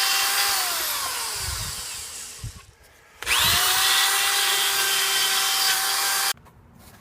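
A handheld power tool running at full speed with a high whine and hiss, then slowing down with falling pitch and stopping. About three seconds in it spins up again, runs steadily and cuts off suddenly about a second before the end.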